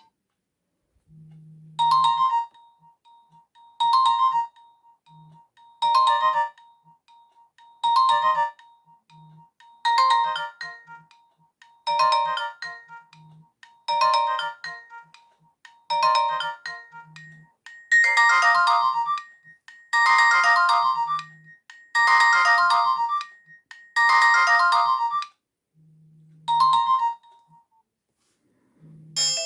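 Nokia 100 mobile phone ringtone: a short electronic melody phrase repeating about every two seconds over a held tone, fuller and louder for four repeats in the second half, ending on one short phrase. A faint low buzzing pulses underneath.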